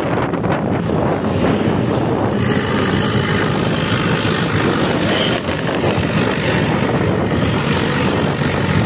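Steady engine and road noise of a vehicle travelling at speed, with some wind on the microphone.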